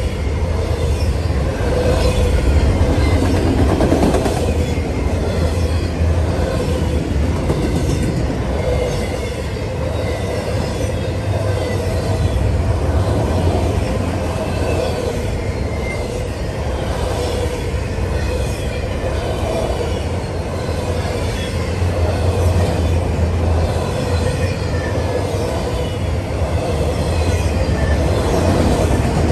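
A freight train of autorack cars rolling past close by: a steady rumble of steel wheels on the rails, with thin high wheel squeal over it.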